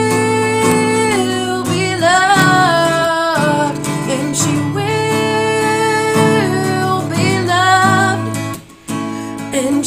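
A woman singing long, held notes while strumming a steel-string acoustic guitar. The voice and guitar drop out briefly near the end, then come back.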